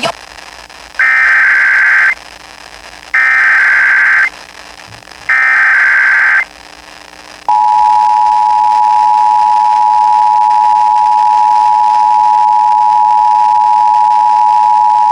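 Emergency Alert System tones on a radio broadcast: three SAME digital header bursts, each about a second long with a second's gap between them, then the two-tone attention signal, a steady dual tone, starting about seven and a half seconds in. This sequence opens a Required Monthly Test of the EAS.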